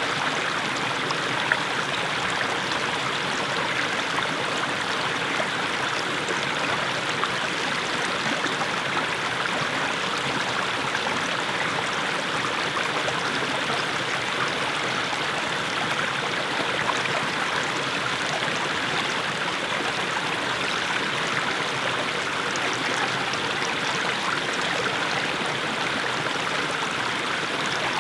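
Small mountain stream splashing down low steps of stones: a steady, even babble of running water with many small splashes.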